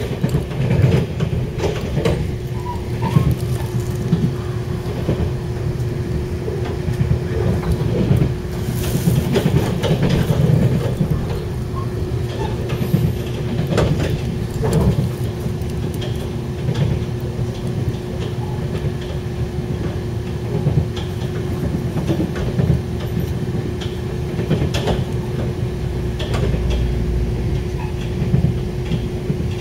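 Moving electric train heard from inside the carriage: a steady rumble of wheels on rails, with a constant hum and scattered light clicks.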